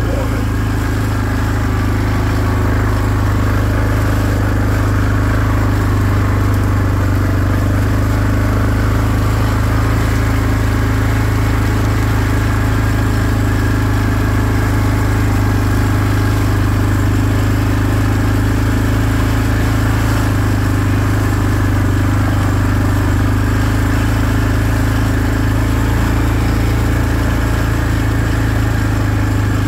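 ATV engine running steadily while the quad is ridden, a constant low drone that hardly changes in pitch or loudness.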